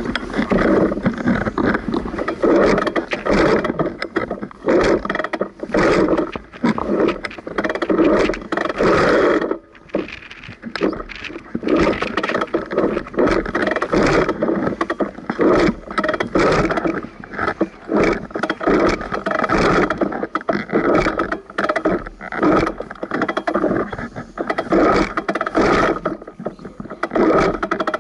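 Enduro dirt bike's engine revving in irregular surges as it is ridden through sand, muffled through the action camera, easing off briefly about ten seconds in.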